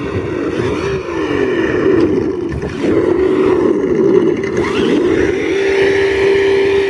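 Axial Bomber RC crawler running, with engine noise that rises and falls in pitch as the throttle is worked, then holds steady near the end.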